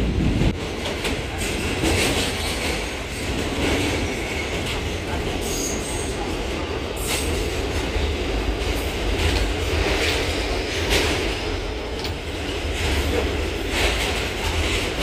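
Two New York City subway trains running side by side through a tunnel, heard from inside one of the cars: a steady rumble of wheels on rail with scattered rail-joint clicks, and a brief high wheel squeal about five and a half seconds in.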